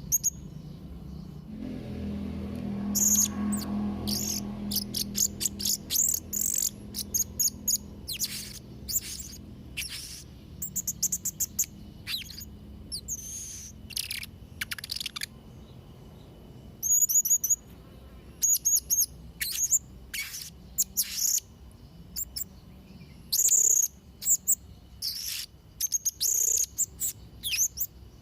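Blue-crowned hanging parrot calling: short, very high, thin chirps in quick clusters, repeated throughout. A low rumble sits under the calls for the first half.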